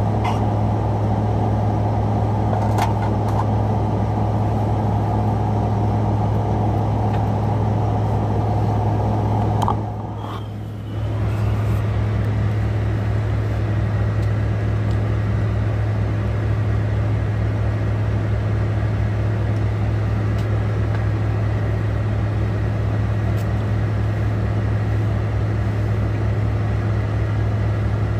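Semi truck's diesel engine idling steadily, heard from inside the cab as a low, even hum, which dips briefly about ten seconds in.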